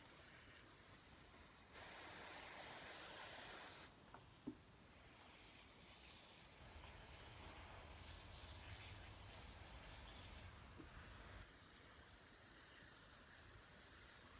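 Garden hose spray nozzle running faintly, water hissing onto wet potting mix in small plastic pots; the hiss swells for about two seconds near the start. One light click about four and a half seconds in.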